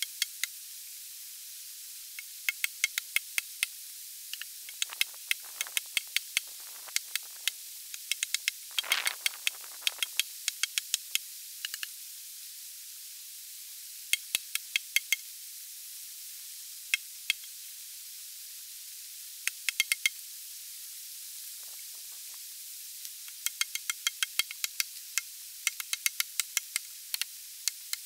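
Axe chopping into a log, short sharp strikes coming in bursts of several quick blows, over the steady hiss of running river water.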